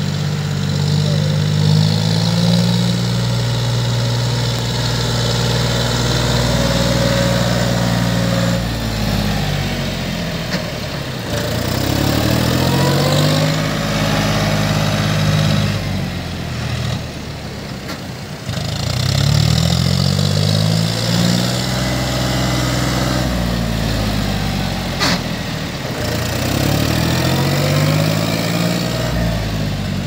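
Tractor engine running, its pitch rising and falling back in repeated swells as the throttle is opened and eased off several times. A sharp click near the end.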